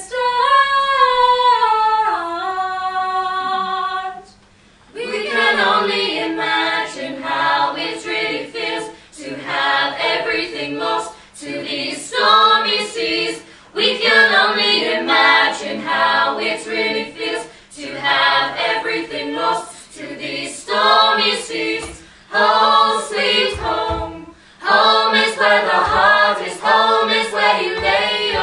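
A group of mostly female voices singing a cappella. One long held note slides down in pitch over the first few seconds. After a short pause, a run of short choral phrases follows, broken by brief gaps.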